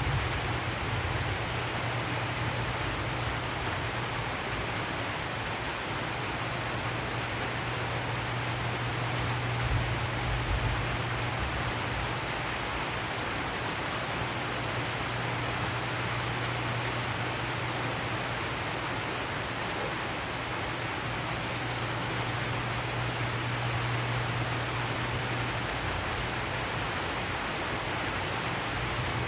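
Steady rain falling on a zinc sheet roof, an even hiss with a low steady rumble underneath.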